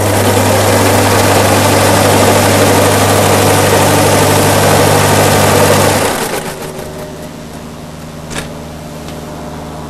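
Motor-driven fan of a Coanda disk aircraft running at speed with a loud rush of air over a steady hum. About six seconds in it drops back to a quieter, lower hum.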